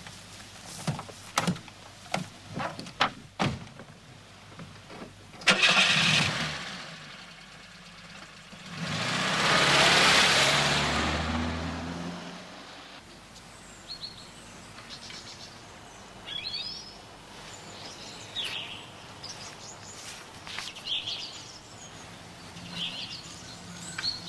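A red Audi sedan: a few sharp clicks and knocks as it is boarded, then the engine starts about five seconds in and the car drives off, its sound swelling and then fading away over a few seconds. Birds chirp in the quiet that follows.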